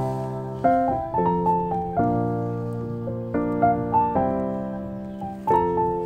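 Background piano music: slow, gentle chords, each struck and left to fade before the next.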